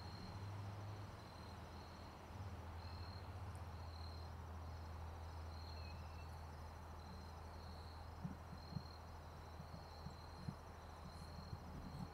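Insects chirping: one sounds a short high chirp about every two-thirds of a second, with a fainter, higher, continuous trill behind it, over a steady low hum. A few soft clicks come in the second half.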